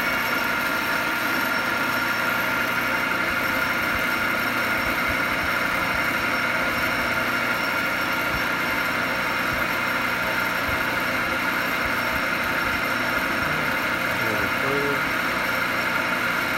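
Grizzly G4003G gear-head lathe running at 600 RPM, a steady loud whine with several held tones, while a carbide tool takes a facing cut on a steel bar.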